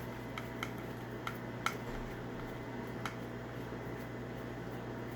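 Small metal parts of a hotel door lock being handled, giving five light clicks in the first three seconds over a steady low hum.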